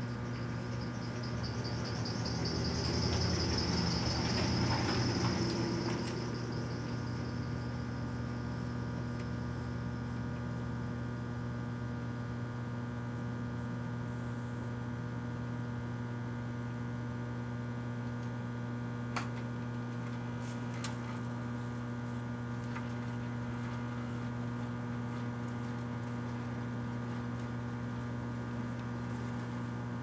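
1984 Kenmore microwave oven running with a steady electrical hum while a Resolve stain stick burns inside. In the first six seconds a hissing crackle swells and fades, and two sharp snaps come about two-thirds of the way through.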